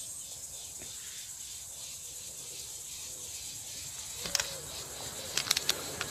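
Steady high-pitched insect buzz with faint regular pulsing chirps, broken by a few sharp clicks: one about four seconds in and a quick cluster of three or four more about a second later.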